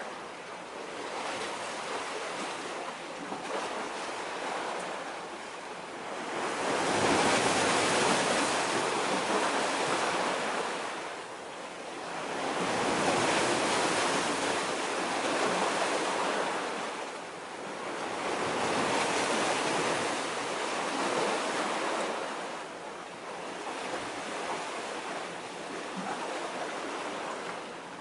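Sea waves washing against a concrete-block breakwater, the rushing wash swelling and fading in slow surges every five or six seconds.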